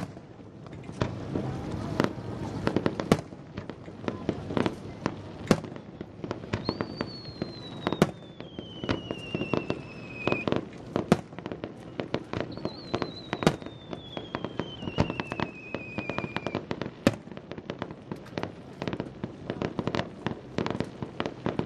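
Fireworks bursting in quick succession, with sharp bangs and crackling. Two long whistles falling in pitch sound through the middle of the stretch.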